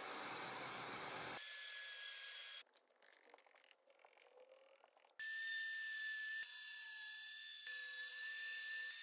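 Random orbital sander wet-sanding a cured epoxy resin tabletop with a steady high whine. It opens with about a second and a half of rushing hiss, drops almost to quiet for a few seconds in the middle, then the whine returns and holds to the end.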